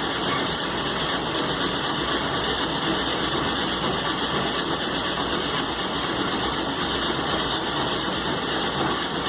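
Air-cooled Volkswagen Beetle flat-four being cranked on its starter motor in a long steady run without catching, on its first start after a rebuild, with fuel only just reaching it.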